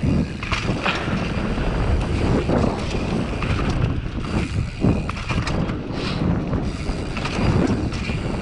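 Mountain bike descending a dirt trail: wind rushing over the microphone, tyres on dirt and the bike rattling and knocking over bumps. Something at the rear clatters loose, which the rider puts down to the rear derailleur's clutch not being switched on.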